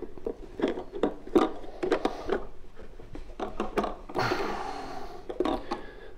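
Plastic clicks and knocks of a PLASSON slip repair tee and its nuts being handled and pushed onto polyethylene pipe, with a scraping rub lasting about a second about four seconds in.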